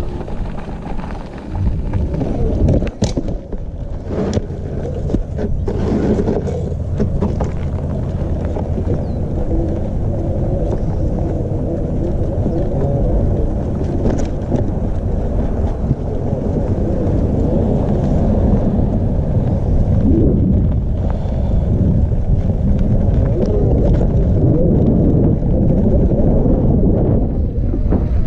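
Steady wind buffeting the microphone during a ride, with several sharp knocks and clatters in the first quarter.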